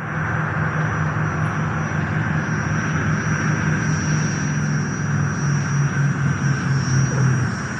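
Airplane engine running steadily: a low, unevenly pulsing drone with a constant high whine above it.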